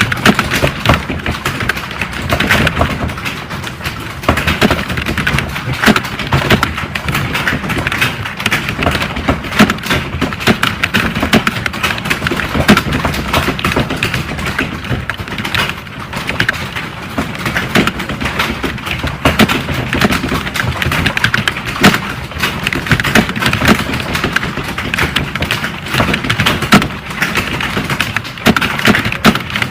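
Keys typed fast and without a break on a computer keyboard: a dense, even stream of clicks and clacks with occasional heavier key strikes.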